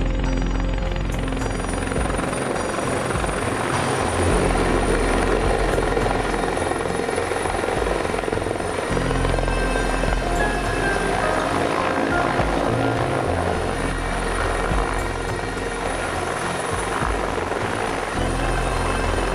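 Twin-turbine Bell 412 police helicopter approaching and hovering low to land on a helipad: a steady, loud rotor beat with a high turbine whine running over it.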